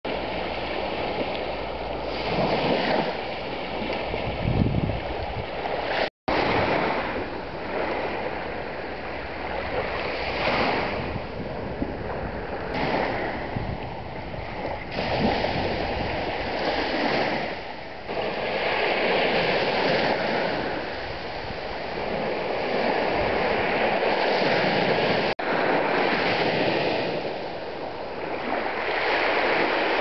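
Small Black Sea waves breaking and washing up a sandy, shell-strewn beach, the surf swelling and easing every few seconds. The sound cuts out for a split second about six seconds in.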